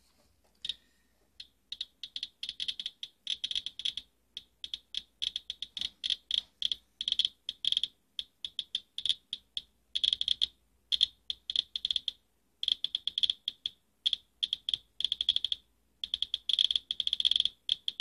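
Radiation Alert Inspector Geiger counter clicking rapidly and irregularly, one short sharp click per count, sparse for the first second or so and then coming in quick, uneven clusters. It is reading a high count, climbing past 300 counts per minute, off a dust-clogged space-heater air filter.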